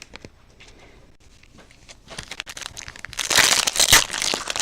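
Foil trading-card pack wrappers crinkling as they are handled and opened: quiet for about two seconds, then rapid, irregular crinkling that grows louder.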